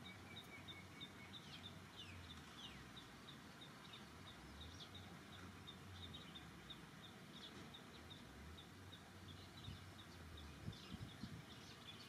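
Faint outdoor ambience: a high chirp repeating about three to four times a second, with a few short falling bird calls near the start and a low steady hum.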